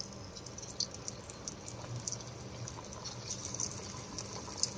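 Slices of steamed kothimbir vadi (gram-flour and coriander cake) deep-frying in hot oil in a kadhai: a steady sizzle full of small crackles and pops.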